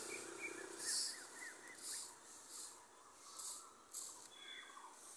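Small birds chirping in short, quick calls, over soft high swishing sounds that come roughly once a second.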